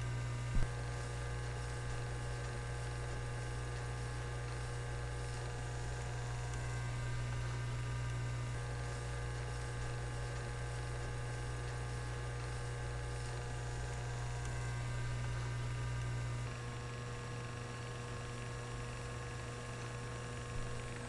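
Steady electrical hum with a row of faint steady tones above it, and a single sharp click about half a second in. The hum gets a little quieter about sixteen seconds in.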